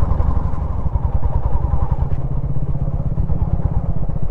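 A motor vehicle's engine running steadily, heard close by, with a rapid, even pulsing throughout.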